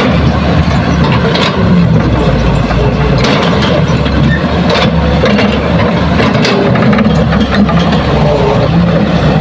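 Diesel engines of a Hitachi hydraulic excavator and small dump trucks running steadily while the excavator loads soil, with a few short knocks.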